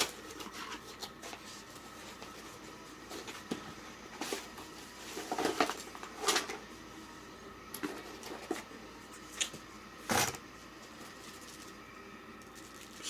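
Handling noises while gear and packaging are taken out of a case: scattered rustles, light clicks and knocks, with one sharper knock about ten seconds in.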